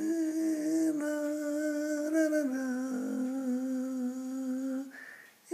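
A woman humming the song's melody without words: long held notes that step down in pitch about halfway through, breaking off about five seconds in.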